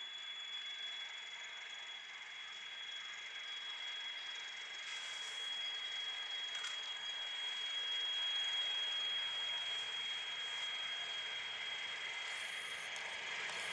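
SM42 diesel-electric locomotive approaching slowly with a train, its engine and running noise growing gradually louder. A steady high-pitched whine holds throughout.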